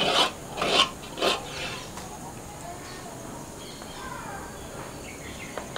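Three short scrapes of a wooden spoon scooping thick jam out of a clay bowl, in the first second and a half, with faint bird chirps in the background.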